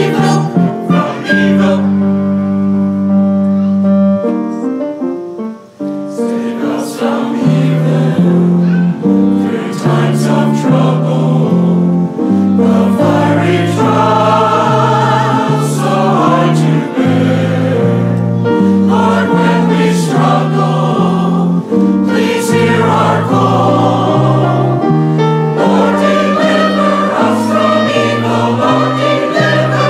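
Mixed church choir singing with a small instrumental ensemble, a cantata in performance. A held chord dies away about five to six seconds in, then the choir sings on in moving lines.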